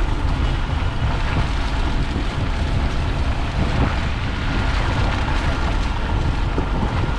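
Steady wind buffeting the microphone, over the road noise of a car's tyres running along an icy, snow-covered road.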